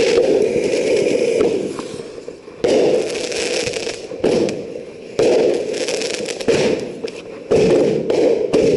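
Consumer aerial fireworks firing a run of shots. There are about five sudden blasts, each followed by a hissing, crackling fade.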